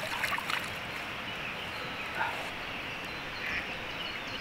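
Quiet pondside ambience with a little water splashing in the first half-second, as a just-released carp swims off, then a few faint, short animal calls.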